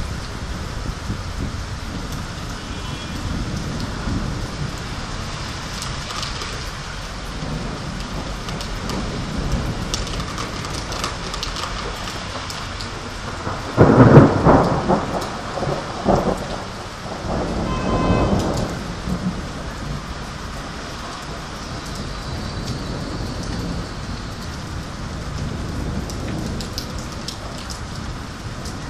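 Thunderstorm: steady rain, with a sudden loud thunderclap about halfway through that rumbles on for a few seconds, then a second, weaker roll of thunder shortly after.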